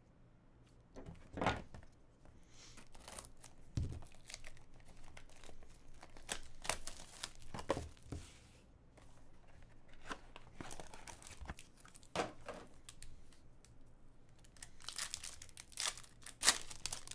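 Foil trading-card pack being crinkled and torn open by hand: irregular crackling rustles, with a few knocks, loudest in a cluster near the end.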